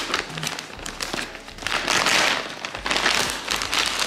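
Black plastic mailing bag crinkling and crackling in uneven bursts as hands grip it and pull it open.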